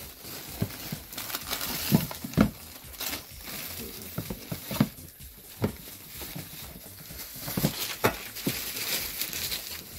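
Thin plastic shopping bags rustling and crinkling as groceries are unpacked into a plastic storage bin, with scattered sharp knocks as packets and cans are set down in it.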